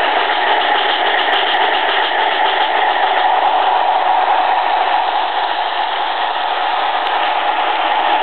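HO-scale model train, a metal MTH GS-4 steam locomotive and Märklin PA-1 diesel pulling plastic heavyweight coaches, running past close by: steady motor and wheel-on-rail rolling noise. It is a little quieter past the middle as the coaches follow the locomotives.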